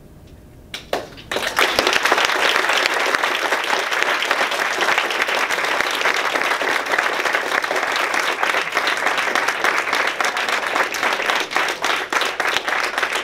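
Audience applauding: clapping starts about a second in, holds full and dense, and thins to scattered claps near the end.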